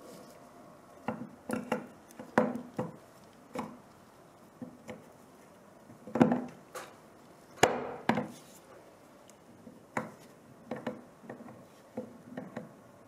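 Irregular clicks and knocks of plastic and metal parts as an air compressor's crankshaft assembly, with its connecting rods and ball bearings, is handled and seated into its 3D-printed frame. The two loudest knocks come a little past the middle.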